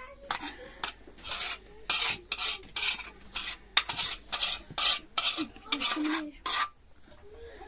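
Metal spoon scraping fried onions out of a hot metal pan into a cooking pot: a run of quick scrapes, about three a second, stopping near the end.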